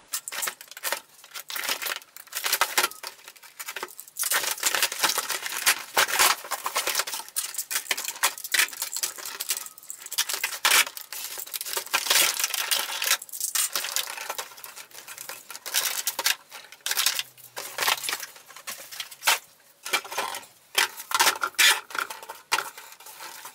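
A toy blaster being unpacked from its cardboard box: irregular rustling, scraping and clicking of cardboard and plastic packaging, with loose parts clattering on a table.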